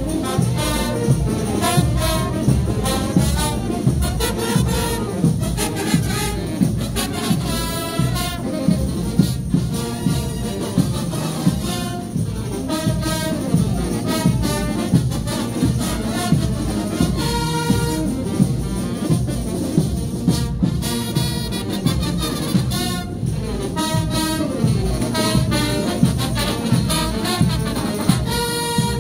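Frevo music from a brass band: trumpets, trombones and saxophones playing a lively melody over a steady beat of drum hits.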